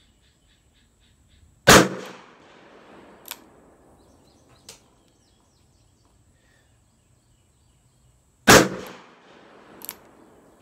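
Two loud shots from a Smith & Wesson Model 19 K-frame revolver, about seven seconds apart, each ringing on briefly under the range's roof, most likely with .38 Special loads. Three fainter sharp cracks fall between and after them.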